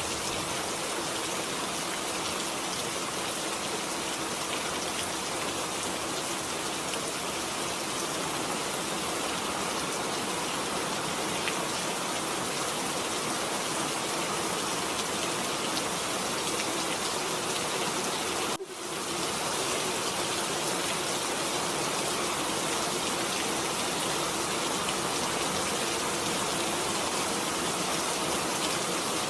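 Steady, heavy rain falling, a dense even hiss that dips briefly about two-thirds of the way through before carrying on.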